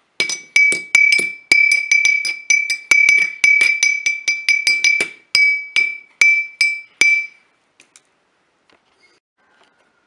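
A glass Staryi Zhytomyr vodka bottle tapped in a quick rhythm, each tap ringing at the same high pitch. The taps slow near the end and stop about seven seconds in.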